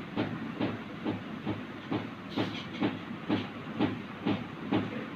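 A steady, even clicking about twice a second over a constant background hiss.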